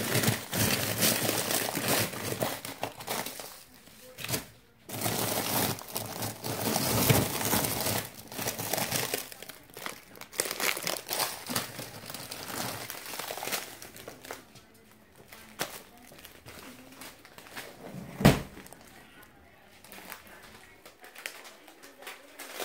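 Plastic freezer bags crinkling and rustling as they are handled in a freezer, loudest over the first nine seconds. A single thump comes about eighteen seconds in.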